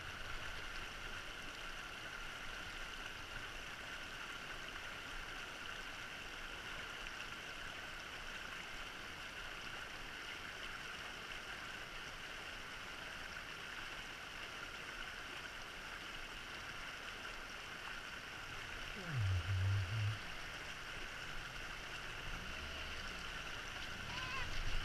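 Shallow mountain stream running over stones, a steady rushing. About 19 seconds in there is a brief low engine rumble, and another motorcycle's engine grows louder near the end as it approaches over the rocks.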